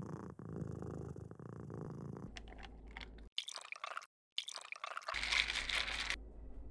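A cat purring steadily while being petted. After a cut, ice clinks and liquid is poured over ice in a glass mason jar, with a spoon stirring the ice near the end.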